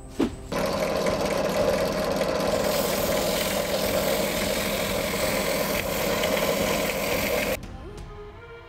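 Power woodworking tool running steadily as it cuts plywood, starting about half a second in and stopping abruptly near the end, over background music.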